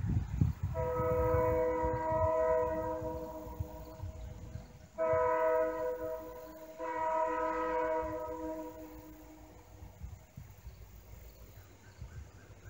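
A diesel locomotive horn sounds from the approaching train, a chord of several notes blown three times: one long blast, a shorter one, then a third that trails away. It is the kind of horn pattern used ahead of a grade crossing.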